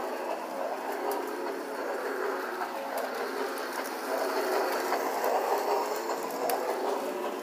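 Toy Christmas train running around its track: a steady small-motor and gear whir with scattered light clicks from the wheels on the rails.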